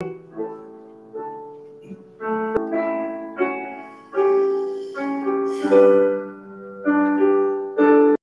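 Piano playing a slow invitation hymn, chords struck about once a second and left to ring out, cutting off abruptly at the end.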